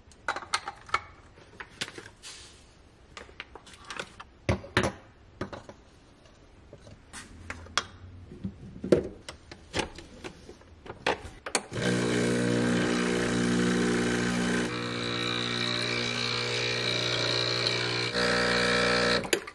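Clicks and knocks as a portafilter is handled and locked into a Breville espresso machine. About twelve seconds in, the machine's pump starts with a loud, steady buzz as a shot is pulled, its tone shifting about three seconds later, and it cuts off just before the end.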